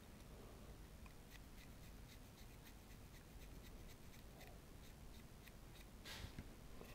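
Faint, quick scratchy ticks of a paintbrush stroking paint onto a miniature, about four a second, with a short hiss near the end.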